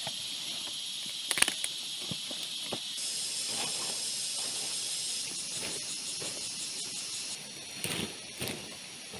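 A rainforest insect chorus keeps up a steady high-pitched drone whose layers shift abruptly a few times. Over it come a few sharp knocks or cracks, the loudest about a second and a half in and two more near the end.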